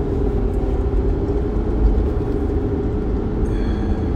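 Chevrolet Corvette Stingray's V8 engine running steadily as the car pulls away and drives off, a constant low engine drone with a steady hum above it.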